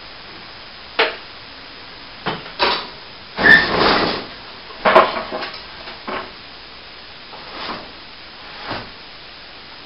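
A string of irregular knocks and clatters, about eight in all, with a longer scraping clatter about three and a half seconds in that carries a brief high squeak.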